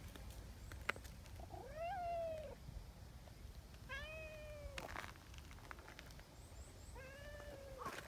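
A cat meowing three times, a couple of seconds apart. Each meow is a drawn-out call of just under a second that rises and then falls in pitch.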